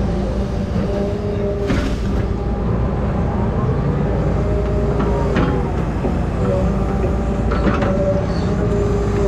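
Heavy machinery running, with a steady low engine rumble and hydraulic whine that shifts in pitch. A few sharp knocks sound over it.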